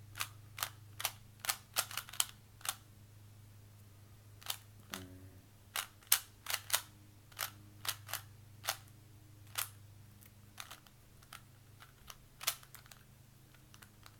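Plastic Rubik's Cube layers being turned fast by hand during a speed solve, a string of sharp, irregular clicks in quick clusters with short pauses between as the solver works through the first two layers.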